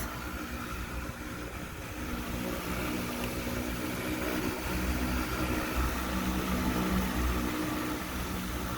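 A motor running steadily with a low hum, growing slightly louder a couple of seconds in.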